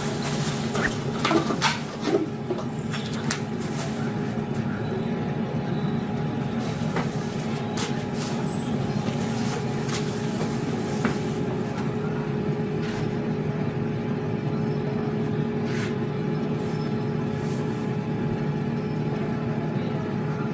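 A steady machine hum at one unchanging pitch, like a small motor running, with a few clicks and knocks in the first two seconds.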